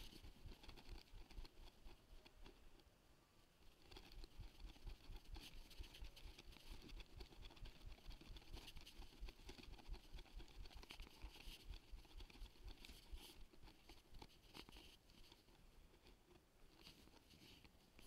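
Near silence with a faint, close patter and rustle of movement that keeps up through most of the stretch and softens briefly about three seconds in.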